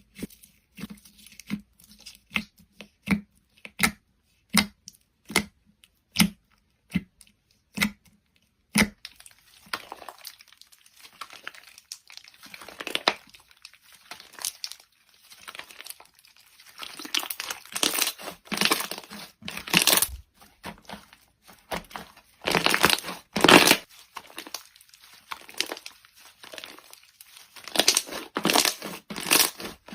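Slime being played with by hand: a run of short sharp pops, about one a second, for the first nine seconds, then a continuous crackle with louder surges as it is worked.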